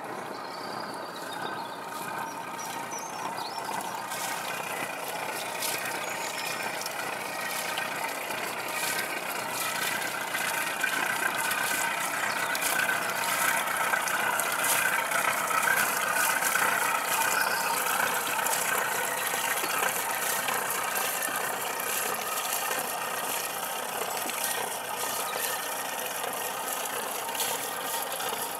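Motor cruiser's engine running steadily, with a faint rattle; it gets louder for a while around the middle.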